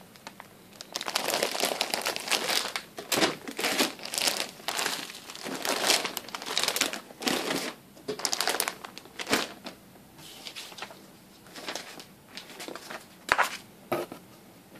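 Clear plastic shirt bags crinkling and rustling in irregular bursts as bagged shirts are handled and settled into a cardboard box, loudest in the first two thirds and then sparser, with a couple of sharp clacks near the end.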